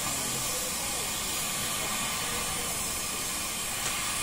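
Oxy-fuel gas torch hissing steadily as its flame heats a steel steering part.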